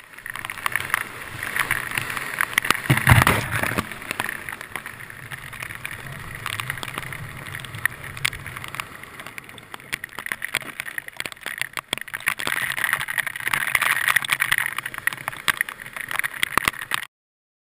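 Surf kayak's on-board camera sound: rushing, splashing whitewater and wind buffeting the microphone, with a loud splash or thump about three seconds in. It cuts off suddenly near the end.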